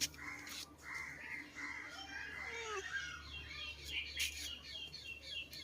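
Birds chirping and twittering in many quick, overlapping short calls.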